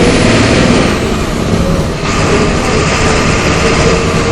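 MWM 6.12 TCAE six-cylinder turbodiesel of a Volksbus 17.210 EOD bus running under way, loud and steady, with a brief dip about a second and a half in before it picks up again.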